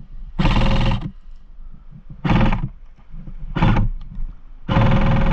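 Airsoft electric gun fired close by in four short full-auto bursts, each a loud buzzing rattle lasting under a second to about a second.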